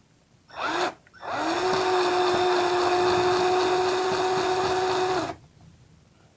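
Electric drill with a hex driver bit backing out a screw: a brief squeeze of the trigger, then a steady whine of about four seconds that rises quickly to speed and stops sharply.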